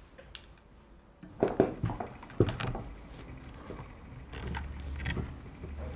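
Plastic clicks and knocks as a camera is handled and fitted onto the underside of a DJI Inspire 1 quadcopter. There is a quick run of clicks about a second and a half in, and a few more near the end.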